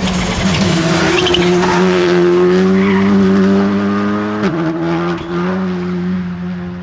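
Porsche 992 GT Rally's flat-six engine running hard at high revs, its note climbing slightly, then dipping suddenly about four and a half seconds in before pulling on steadily.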